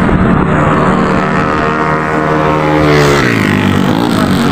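A road vehicle's engine running close by, with steady traffic noise beneath. About three seconds in its pitch drops as it goes past, then wavers.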